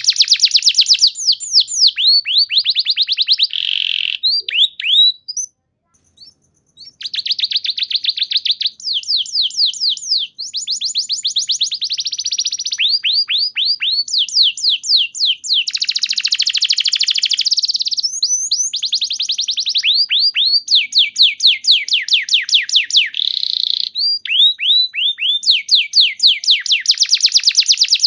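Domestic canary singing: long runs of rapidly repeated notes, each run a different phrase, with a brief pause about five to six seconds in.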